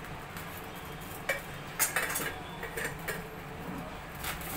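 A few light clinks and knocks of kitchen utensils, about six scattered through, over a steady low hum.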